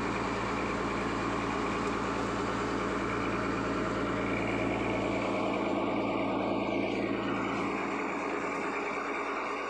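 Fishing boat's engine running steadily, a constant hum; its deepest tone drops away about five seconds in.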